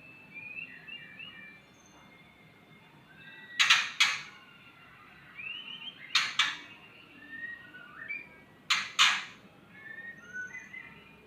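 White-rumped shama in breeding condition (birahi) giving short whistled phrases, many of them quick rising notes. Three times, a pair of loud, harsh, noisy sounds cuts in, the loudest things heard.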